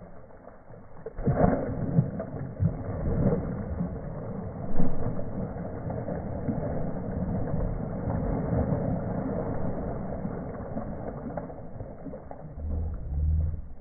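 Water splashing as a hooked mahi-mahi thrashes at the surface, over a low rumble, in irregular surges; the loudest splash comes about five seconds in.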